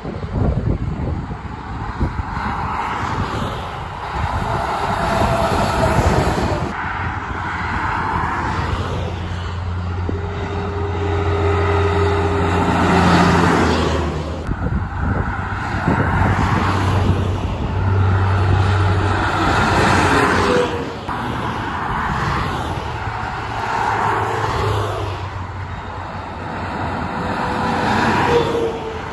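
Highway traffic passing: tyre noise and heavy trucks' diesel engines swelling and fading as they go by. A steady engine drone from a passing truck stands out for several seconds around the middle.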